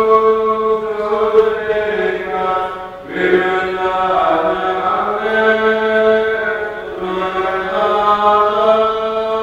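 A group of clergy chanting a liturgical hymn together in long, held notes, with short breaths about three seconds in and again near seven seconds.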